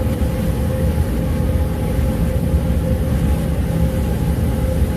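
Shop heater running: a steady low rumble with a faint constant hum over it.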